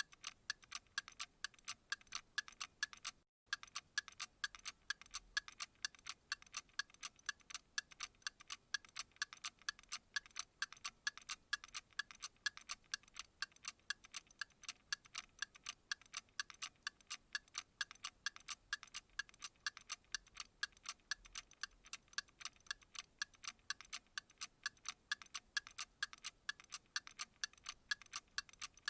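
Clock ticking in a steady, even rhythm of sharp, bright ticks, several a second. A brief gap of silence breaks it a little over three seconds in.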